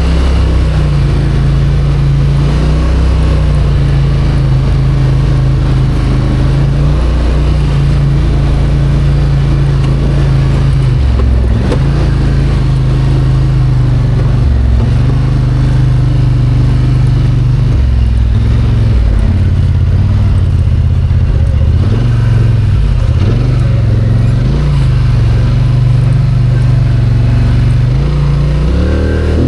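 Vehicle engine running continuously under load, its pitch stepping up and down with throttle and gear changes, with several brief dips in the middle.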